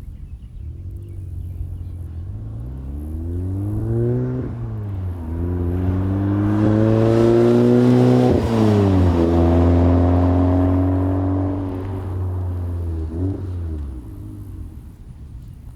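VW Golf R's turbocharged four-cylinder through an AWE SwitchPath exhaust, accelerating hard. The pitch climbs and drops sharply at an upshift twice, then holds and fades away, with a short blip of revs near the end.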